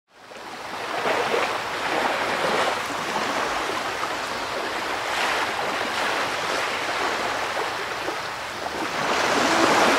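Ocean surf rushing and swelling in slow waves. It fades in at the start and surges louder near the end.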